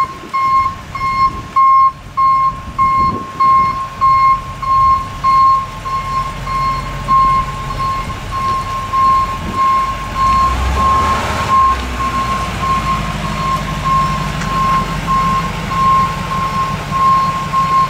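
Backup alarm of a flatbed rollback tow truck beeping steadily, about one and a half beeps a second, as the truck reverses. The truck's engine runs underneath, rumbling louder about halfway through.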